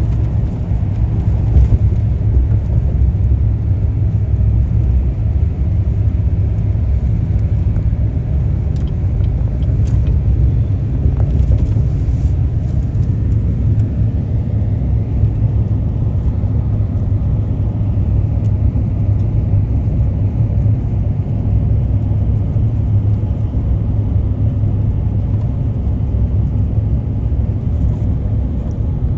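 Steady low rumble of a car driving, road and engine noise without a break.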